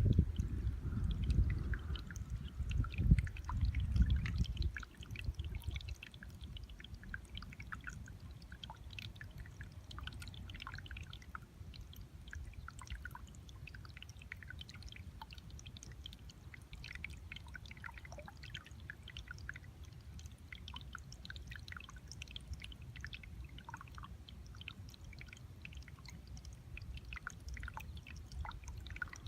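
Water trickling and spilling out of a rice paddy, a steady babble of many small splashes and drips. A louder low rumble dominates the first five seconds or so, then fades back.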